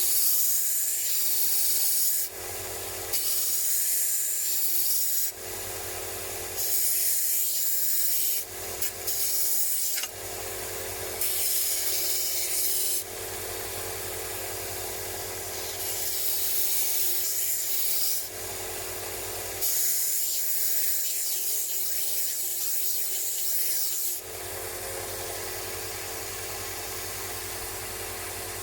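Abrasive rubbing on the metal wrench during rust removal: about seven scouring bursts of one to four seconds each, with short pauses between them. The last few seconds are quieter and steady.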